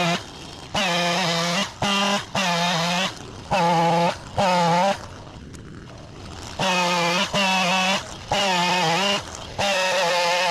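Two-stroke chainsaw revved to full throttle in repeated short bursts of about half a second to a second, dropping back between them, as it cuts through a tree trunk.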